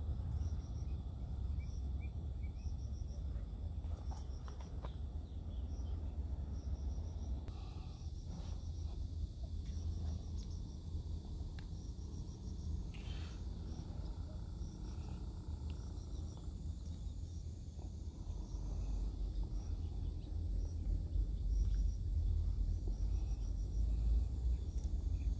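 Outdoor insect sound: short chirps repeating in small groups, with a steady high buzz that stops about seven seconds in, over a steady low rumble. A few faint clicks stand out.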